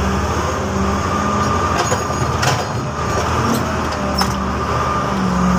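XGMA motor grader's diesel engine running steadily while the grader moves, heard from inside its cab, with a few short sharp knocks over the engine noise.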